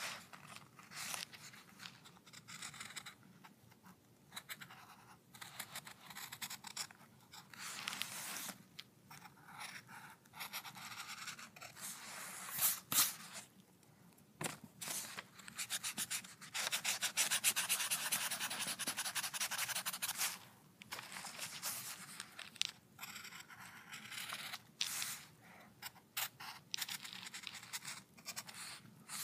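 Drawing strokes scratching across paper in short, irregular bursts, with one longer unbroken stretch of strokes a little past halfway.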